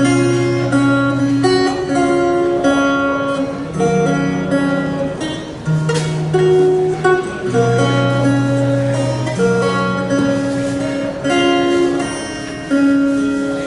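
Instrumental interlude played on acoustic guitar, with no singing: strummed and picked chords that change every second or two under a held bass line.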